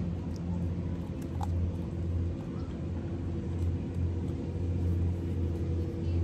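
A steady low engine hum with a deep drone that swells and eases slightly.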